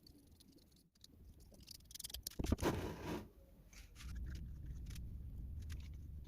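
Workshop handling sounds: light clicks and scratches, then a loud scraping rasp lasting under a second about two and a half seconds in. A steady low hum follows from about four seconds.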